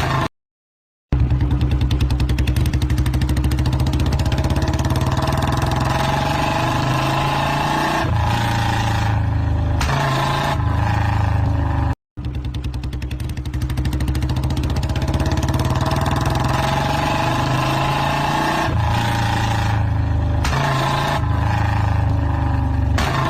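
Royal Enfield motorcycle engine running with a rapid, even exhaust beat, its pitch rising slowly and then shifting twice. The same stretch plays twice, split by a brief break halfway through.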